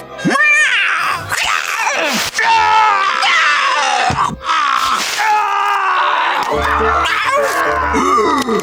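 Cartoon animal characters screaming and wailing in panic, many cries swooping up and down in pitch and overlapping, over background music.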